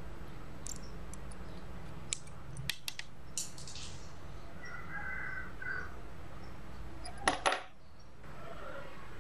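Small metal clicks and taps from a screwdriver and the stainless-steel parts of a rebuildable tank atomizer being handled. A few light ticks come in the first few seconds, then two sharp metal clacks about seven seconds in.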